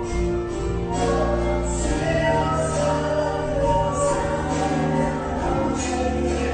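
Music with singing over sustained held chords and a bass line that changes note about two seconds in.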